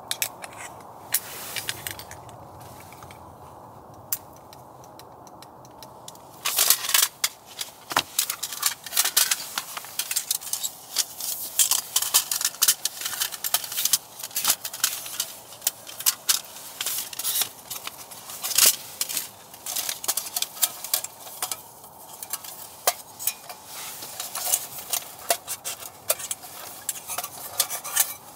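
Camp cookware and utensils being handled: clinks, taps and scrapes of metal and dishes over a steady low hiss, turning into a dense run of clicking and crackling from about six seconds in.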